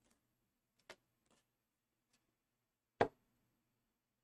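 Two light taps from tarot cards being handled on the table: a faint click about a second in and a sharper tap about three seconds in, otherwise quiet.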